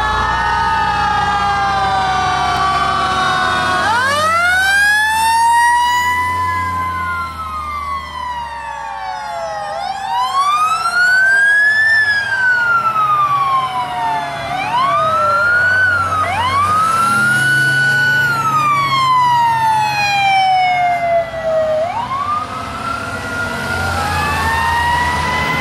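Several sirens on fire vehicles wailing as they pass, overlapping at first. Then one siren keeps repeating a quick rise and a slower fall every few seconds, with truck engines running underneath.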